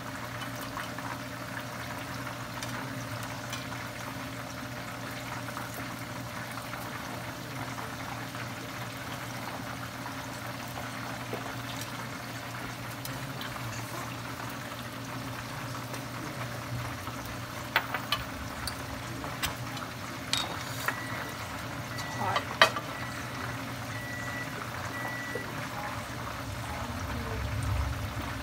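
Chicken pieces deep-frying in pans of hot oil, a steady sizzle, with a few sharp clicks and taps about two-thirds of the way through.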